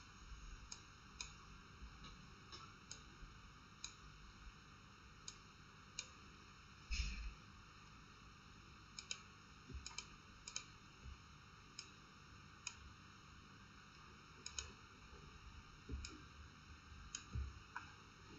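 Faint, sparse clicks of a computer mouse at irregular intervals, some in quick pairs like double-clicks, with one louder thump about seven seconds in.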